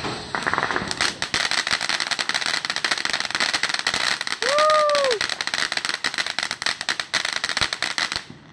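Ground fountain firework spraying sparks: a dense crackling hiss that starts about a second in and cuts off just before the end. A brief rising-and-falling tone sounds about halfway through.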